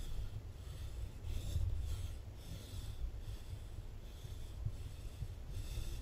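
A climber breathing hard, close to the microphone: short hissing breaths roughly every second, over a low rumble of wind on the microphone.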